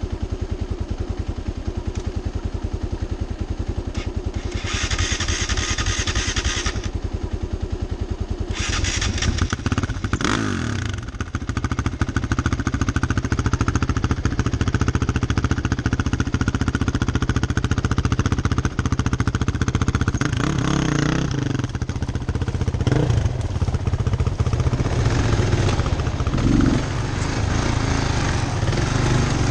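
Single-cylinder dual-sport motorcycle engines running off-road: a Kawasaki KLR650 running close by while a Honda CRF450X ahead works its way up rough ground. There are two short bursts of brighter, louder noise about 5 and 9 seconds in, and from about 12 seconds in the engine sound is heavier and louder as the KLR rides on.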